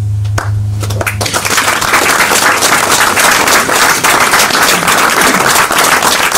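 The last held note of the song stops about a second in, and the audience breaks into steady applause.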